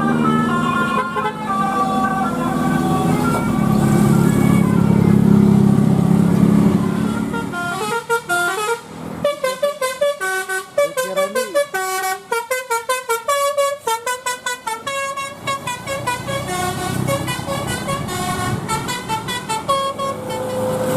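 A bus's telolet basuri multi-tone musical air horn playing a quick melody of stepping notes over the engine's rumble. About a third of the way in the engine drops away and the horn turns to fast, clipped notes, then goes back to a smoother run of the tune near the end.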